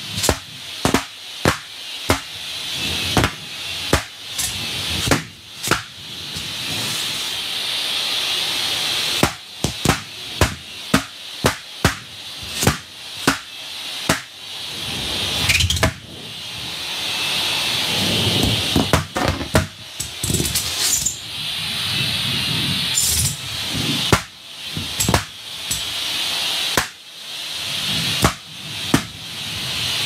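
Latex balloons bursting one after another as a shop vac sucks them in: dozens of sharp pops, often several a second with a few short gaps, over the steady rushing hiss of the vacuum and an air pump.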